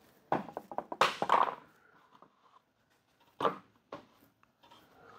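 A few sharp knocks and clattering thuds, the loudest cluster about a second in and another single knock about three and a half seconds in.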